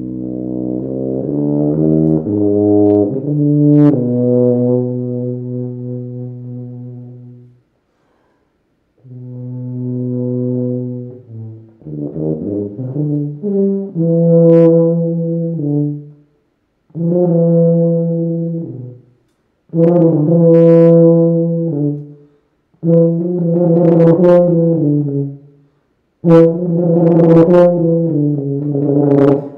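Solo tuba playing unaccompanied: a quick run of changing notes, a long held note, then a series of sustained phrases broken by short breath pauses.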